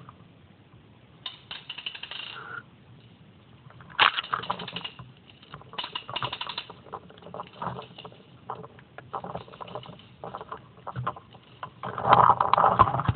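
Crunching footsteps and rustling in dry leaf litter and brush, in uneven spells of crackles. The loudest spell comes near the end, as vegetation brushes close against the microphone.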